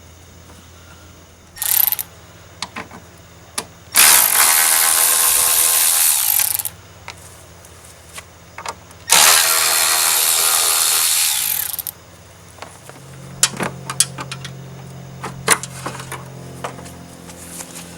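A power tool runs in two steady bursts of about three seconds each, working on the headlight and bumper fasteners of a Ford F-350, with a short burst about two seconds in. Scattered clicks and knocks of handled parts come between the bursts.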